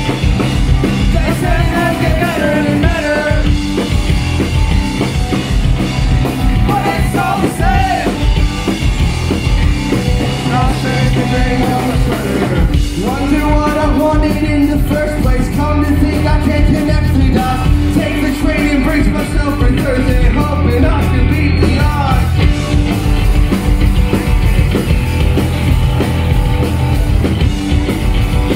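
A live rock band playing a song: electric guitar, bass guitar and drum kit, with a man singing lead vocals over it for much of the time.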